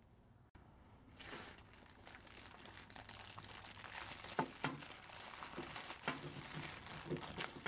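Clear plastic packaging bag crinkling as hands handle a replacement planer handle inside it, starting about a second in, irregular and faint with a few sharper clicks.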